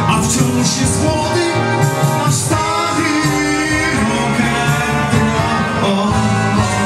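Live dance-band music played loud: an electronic keyboard with a voice singing the melody over it.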